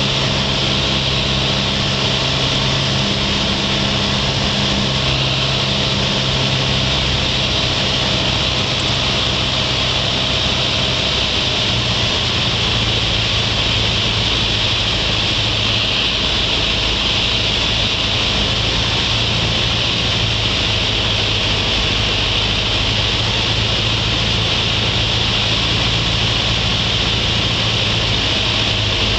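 Piper Cherokee 140's four-cylinder Lycoming engine and propeller running steadily, heard inside the cockpit together with a loud rush of wind noise. The engine note drops slightly about twelve seconds in.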